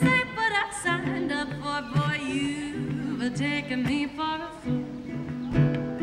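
A woman's voice singing a melody with sliding, bending notes, accompanied by a ukulele.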